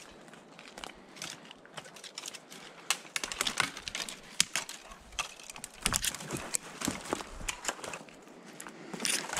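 Irregular crunching and crackling of dry leaf litter and twigs, sparse at first and busier from about three seconds in.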